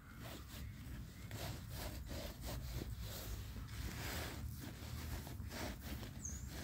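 Fingertip scraping letters into a thin layer of fresh snow on top of a stump: a run of faint, short, irregular rubbing strokes.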